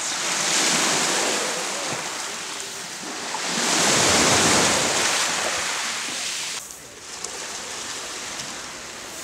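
Sea waves washing on the shore, swelling twice, then dropping suddenly to a softer steady surf about six and a half seconds in.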